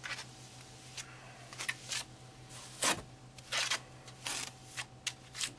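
Mason's trowel spreading and scraping veneer mortar onto the back of a natural stone ledger panel, a series of short, irregular scrapes.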